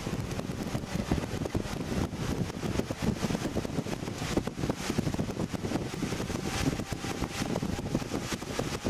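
Mitsubishi Lancer accelerating hard at full throttle, heard from inside the cabin: the engine under load buried in a dense, rough rush of road and wind noise as speed climbs.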